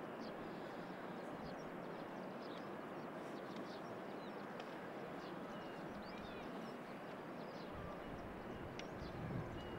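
Steady low rushing noise with many short, high bird chirps scattered through it.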